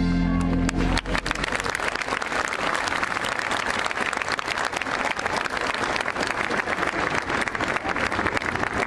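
A large crowd applauding with dense, steady clapping that starts about a second in, just as a held musical chord ends.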